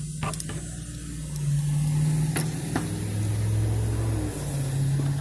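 A motor vehicle engine running steadily, its low hum shifting in pitch a couple of times, with a few light clicks and taps of parts being handled.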